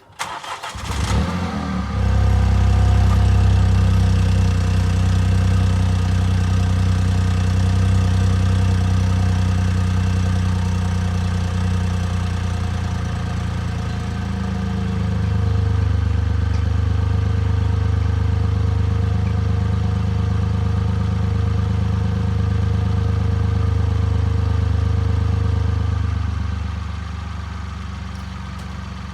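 A 2018 Mini Cooper's 1.5-litre three-cylinder engine being started on its stock exhaust: a short crank, the engine catches with a flare of revs, then settles to a steady idle. Near the end the idle drops and gets quieter.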